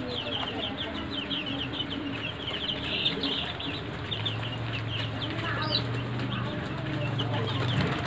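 A brood of ten-day-old Sonali chicks peeping continuously, many short high cheeps overlapping. A low steady hum joins about halfway through.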